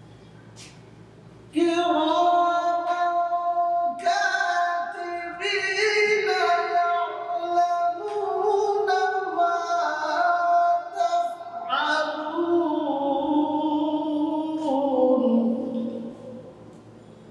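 A man's solo voice chanting Quran recitation in a melodic style, with no instruments. It starts about a second and a half in and holds long notes across a couple of phrases, the last one sliding down in pitch and fading out near the end.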